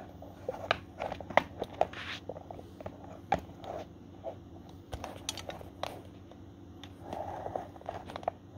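Handling noise from a handheld camera: irregular small clicks, taps and rustles, a couple of them sharper, over a faint steady low hum.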